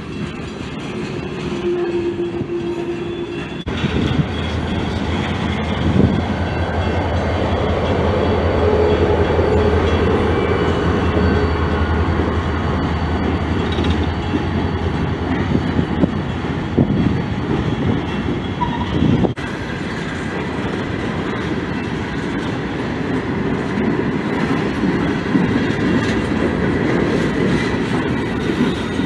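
Loaded coal hopper cars rolling past on the rails with wheel noise and brief wheel squeals. Mid-train diesel-electric locomotives pass in the middle, adding a strong low steady engine drone from about four seconds in until about fifteen seconds in.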